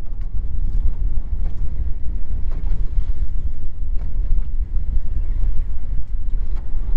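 Wind buffeting the microphone on a fishing boat: a loud, uneven low rumble, with a few light ticks over it.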